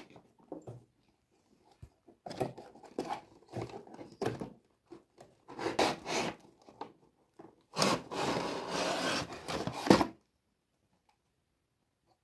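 Cardboard toy box being handled and opened: rubbing and scraping of cardboard on cardboard, then a longer sliding scrape about eight seconds in as the inner tray is drawn out of its sleeve, ending in a sharp knock.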